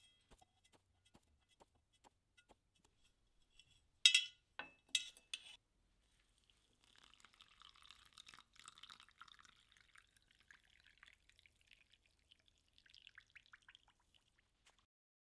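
A few sharp metal clinks against a square steel cup about four seconds in, then water poured from a porcelain jug into the cup onto loose dried leaves, a soft trickle lasting about seven seconds.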